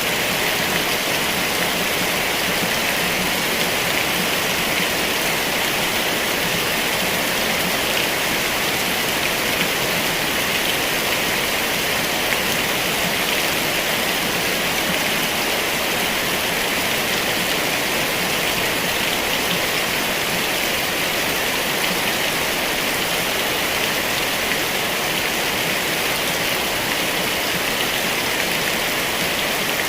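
Heavy rain falling steadily: a dense, even hiss of drops that does not let up.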